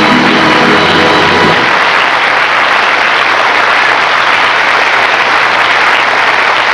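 Studio audience applauding steadily. The music underneath ends about a second and a half in, leaving the applause alone.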